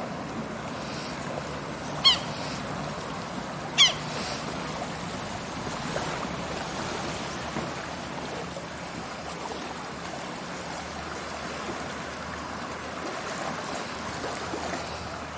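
Small waves washing on a sandy beach as a steady soft wash, with two short, sharp bird calls about two and four seconds in.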